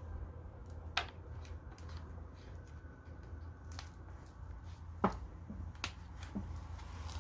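A few scattered clicks and taps of things being handled, the sharpest about one second and about five seconds in, over a steady low hum.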